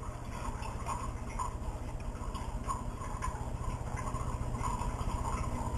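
Table knife spreading peanut butter on a slice of bread: faint, irregular soft scraping strokes over a steady low hum.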